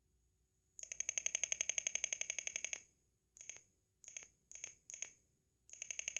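Rapidly pulsing electronic buzz from a small device: one long burst of about two seconds, four short bursts, then another longer burst near the end.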